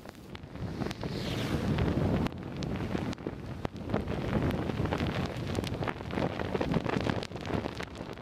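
Storm wind buffeting the microphone: a gusty rumble that swells about a second in, with frequent pops and crackles.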